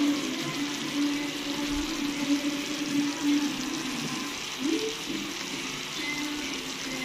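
Fish in coconut milk simmering in a pan, a steady bubbling hiss, with background music playing over it.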